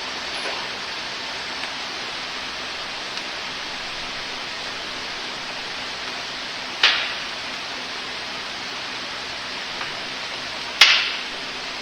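Two sharp knocks about four seconds apart, each dying away quickly, over a steady hiss.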